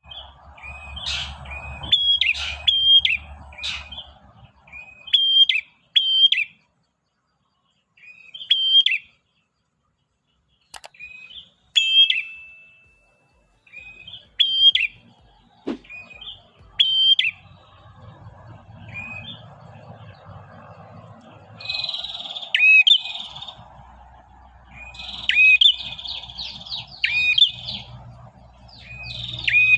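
Male prinia (prenjak) singing its rapid chattering song to call a female: short, sharp repeated chirp phrases come in bursts separated by pauses, running together into a denser, buzzier stretch in the last third.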